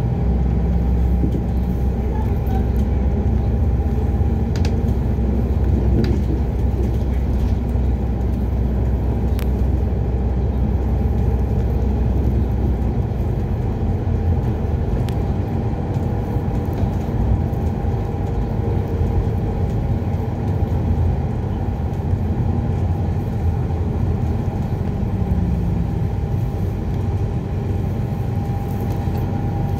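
Cabin sound of an ADL Enviro 400 Hybrid diesel-electric double-decker bus on the move: a steady drivetrain and road rumble with a thin, steady whine above it. The low rumble is heavier for the first dozen seconds or so, then eases, with a few light rattles and clicks.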